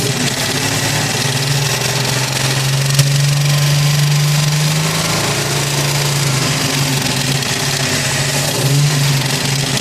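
Nissan VG33 3.3-litre V6 running steadily with a ticking noise, which appeared after the rod and main bearings were replaced with OEM Nissan bearings checked within spec. The engine's pitch rises slightly about three seconds in, and there is one sharp click at the same moment.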